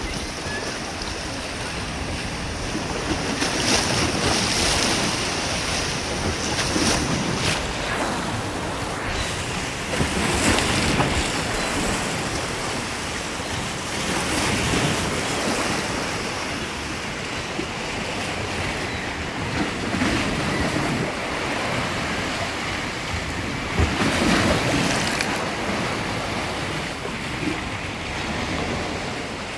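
Small waves washing in at the water's edge, swelling and easing every few seconds, with wind buffeting the microphone.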